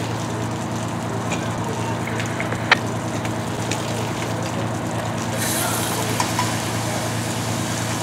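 Steady diesel engine drone, with hose water spraying on the burning garbage truck. One sharp metallic clank comes about three seconds in. A louder hiss of spray and steam starts a little past five seconds and holds.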